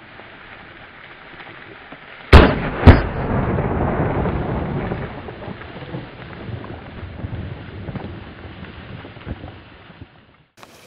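Two shotgun shots about half a second apart, each a sharp crack, echoing off the surrounding hills and fading over a few seconds.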